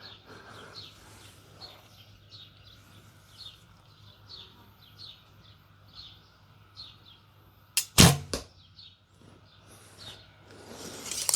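A recurve bow with Nik'a S2 Windstorm ILF limbs being shot: a sharp click, then the loud thump of the string's release about eight seconds in, followed a fraction of a second later by a second knock. Faint bird chirps run throughout, and a rustling noise rises near the end.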